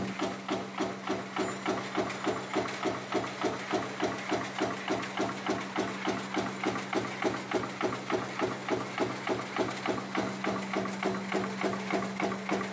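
Razor wire production machinery running: a steady, even rhythm of metallic strokes, about three or four a second, over a constant motor hum.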